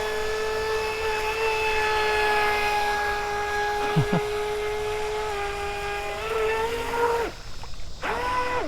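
RC racing boat's electric motor running under throttle with a steady high-pitched whine. It dips slightly in pitch partway through, rises and cuts off near the end, then starts again.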